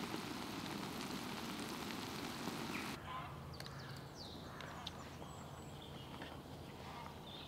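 Omelette sizzling in a frying pan over a small wood-burning stove, a steady hiss that stops abruptly about three seconds in. After that, quieter woodland air with a low hum and a few short bird calls.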